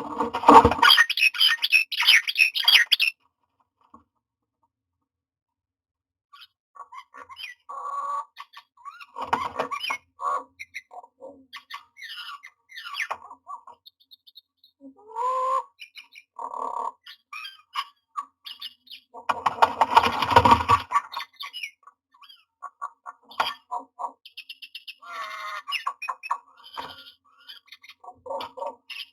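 Common myna calls: harsh squawks and chattering mixed with short whistled notes, loudest in a harsh burst at the start and again about twenty seconds in.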